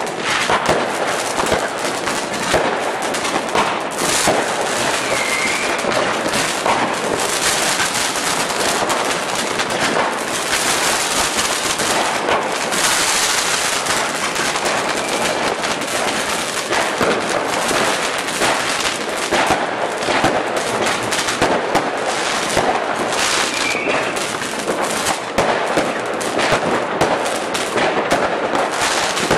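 Fireworks going off in a dense, unbroken barrage of crackles and pops, rockets and sparkling effects bursting one after another. A short rising whistle cuts through twice, about five seconds in and near the end.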